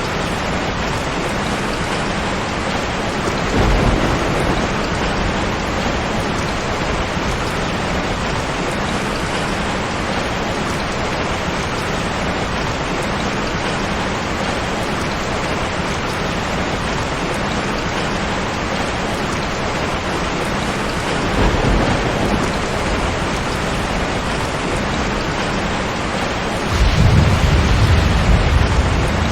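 Steady heavy rain with rolling thunder: a brief low rumble a few seconds in, another past the middle, and a longer, louder rumble near the end.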